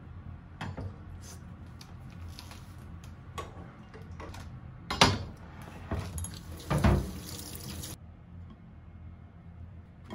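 Kitchen knife cutting salad chicken on a wooden cutting board: light, irregular taps of the blade on the board. About five and seven seconds in come two louder knocks, and a kitchen tap runs into the sink for a few seconds, then stops abruptly.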